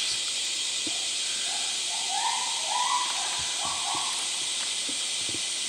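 Steady high-pitched drone of summer cicadas, with a few short mid-pitched calls around the middle.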